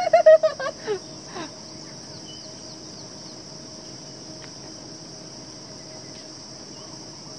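Steady high-pitched drone of an insect chorus, unbroken throughout, with a short burst of a man's voice in the first second and a half.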